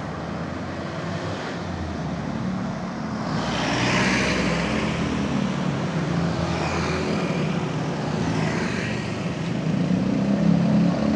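Road traffic: cars and motor scooters passing close by. One pass swells about four seconds in, and motorbike engines build near the end.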